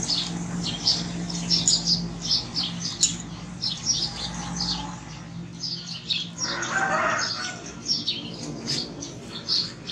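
Small birds chirping and chattering continuously, many short high chirps a second, over a steady low hum.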